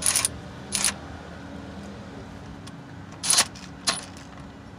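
Metal socket and ratchet clinking as a 15 mm socket is fitted onto a car's oil-pan drain plug: two sharp clinks in the first second and two more after about three seconds, over a steady low hum.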